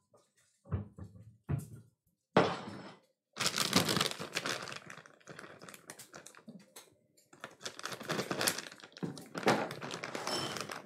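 A few short knocks, then a long run of crinkling and crackling from a plastic bag of frozen shelled edamame being handled, opened and tipped over a glass bowl.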